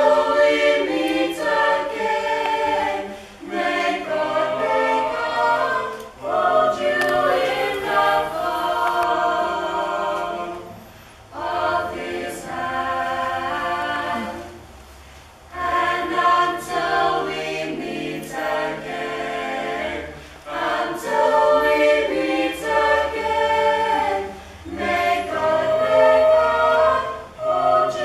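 A small mixed vocal group of female and male voices singing a cappella in harmony, in phrases with short breaks between them.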